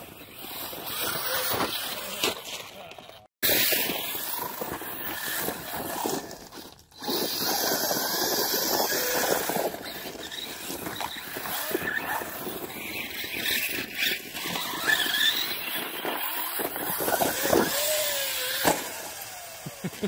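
Arrma Talion 6S RC truggy's brushless motor whining and revving as it drives over the loose dirt and gravel, with tyres scrabbling; the sound drops out abruptly twice early on, and the motor whine rises sharply once toward the end.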